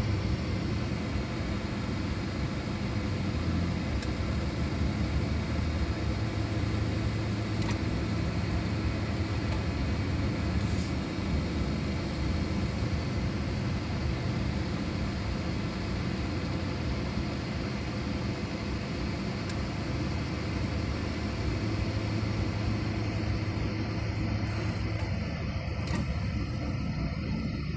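Vehicle engine running with steady road noise: a low, even hum under a constant hiss.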